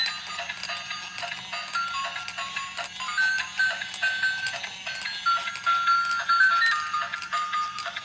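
Background music: a simple high melody of short notes stepping up and down, with frequent light clicks.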